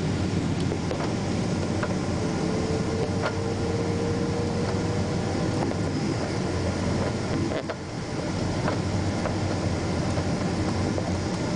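Steady engine and airflow noise heard inside the cabin of a Boeing 777-300 airliner in flight, with a faint tone slowly rising in pitch for a few seconds early on and a brief dip in the noise a little past the middle.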